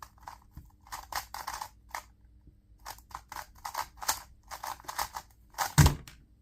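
2x2 speed cube being turned fast: quick, irregular runs of clicking plastic layer turns. A loud thump near the end.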